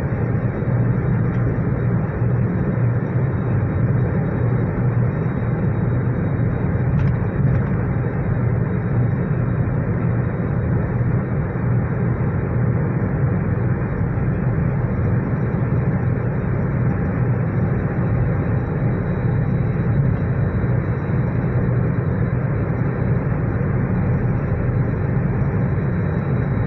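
Steady road, tyre and wind noise inside a car's cabin while cruising at highway speed: an even, low drone.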